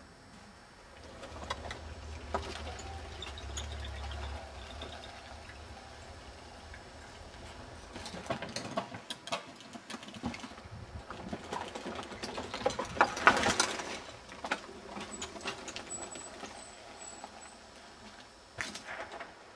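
Mountain bike riding a log ride and wooden ladder bridges: a low rumble early on gives way to a run of clicks and clatters of tyres and bike on the wooden slats, loudest about 13 seconds in, with a short knock near the end.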